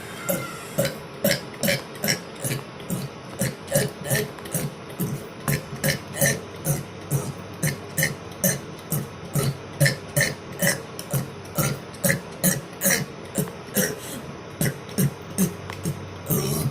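A man's burps repeated one after another in a fast, even rhythm, about three a second.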